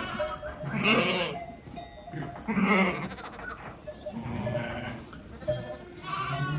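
Sheep in a crowded flock bleating, about four separate calls each around half a second long, one every second and a half or so.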